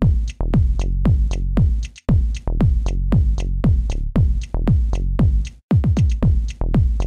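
Electronic dance music with a steady kick drum about twice a second, hi-hat ticks between the beats and a deep bass line; the beat drops out for a moment twice.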